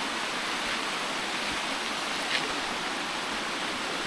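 Mountain stream running high after days of heavy rain, a steady rushing of water, with one short click a little past halfway.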